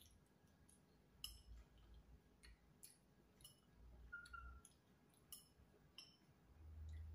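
Faint scattered clicks and clinks of a spoon and fork against a bowl and plate while eating, about ten in all, with a few soft low thumps.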